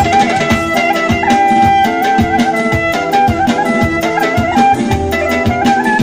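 Live wedding band playing Armenian folk dance music on electronic keyboards: an ornamented melody line over a steady drum beat.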